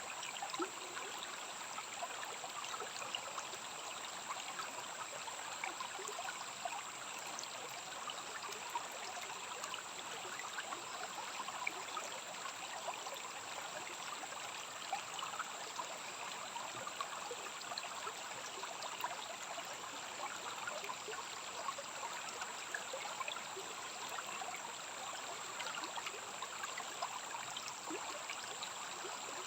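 A small rainforest stream running steadily, with a constant trickling, babbling sound.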